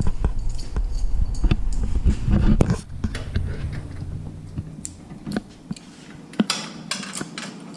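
Scattered clicks and knocks of a candy vending machine's metal parts being handled and refitted, with a low rumble over the first three seconds.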